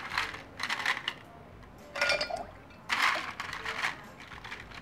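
Ice cubes tipped from a bag into a glass pitcher of lemonade, clattering and clinking against the glass in several bursts.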